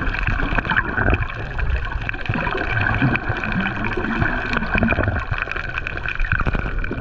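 Underwater sound picked up through a GoPro's waterproof housing: water sloshing and gurgling over the microphone, with a steady crackle of many small clicks.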